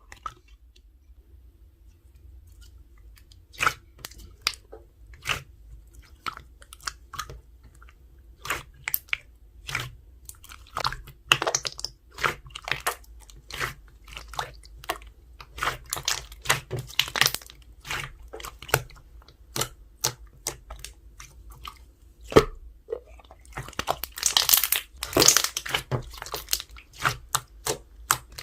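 Slime being pressed and squished by hand, giving sharp sticky pops and clicks about one to two a second. They thicken into a dense crackling run near the end.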